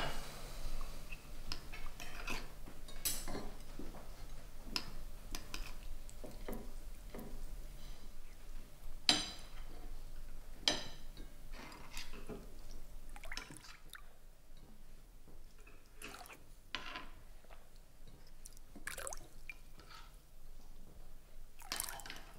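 Spoons and cutlery clinking and tapping against china plates and soup bowls: scattered light clicks every second or so, over a faint steady low hum.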